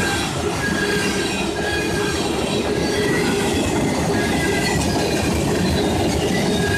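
Freight train's tank cars and covered hoppers rolling past close by: a steady rumble of steel wheels on rail, with short high-pitched wheel squeals coming and going.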